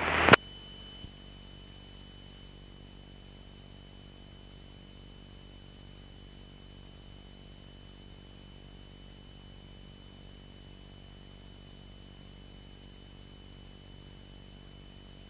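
Faint, steady hiss and low hum of a light aircraft's intercom and radio audio feed in flight, with a thin, steady high-pitched whine running through it.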